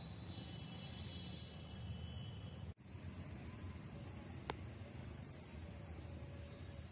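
Faint outdoor ambience under a low rumble. A thin high steady trill runs for about the first two seconds, then rapid high chirping, about six chirps a second, goes on to the end. The sound drops out for an instant near the middle.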